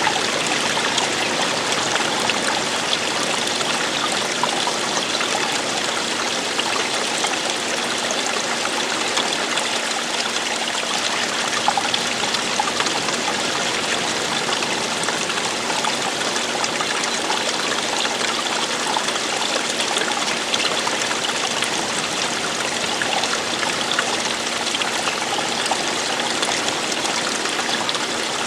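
Running water flowing steadily, an even, unbroken wash of water sound.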